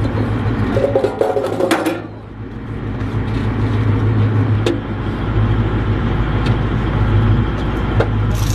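A vehicle engine running steadily as a low hum, with a few isolated sharp clicks.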